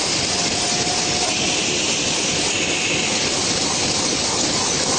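Plastic bag cutting machine with film slitting, running at speed: a steady, dense mechanical noise with no clear rhythm as the plastic film feeds over its rollers.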